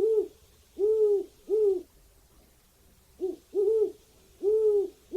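Owl hooting: a series of short, low hoots, each rising and then falling in pitch, in two runs with a pause of about a second between them.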